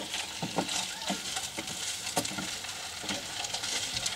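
Food sizzling as it fries in a pan, a steady hiss broken by irregular clicks and scrapes of a utensil stirring it.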